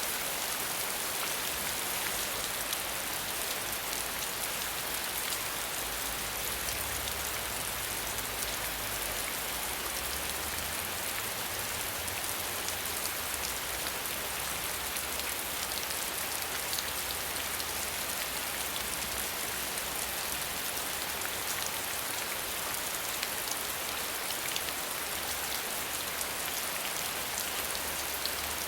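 Steady rain falling without thunder: an even hiss with many small drop ticks throughout.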